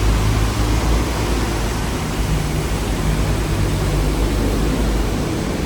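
Hong Kong double-decker tram running, heard from on board: a steady rumble of wheels on the rails and motor, with a low hum that swells in the middle.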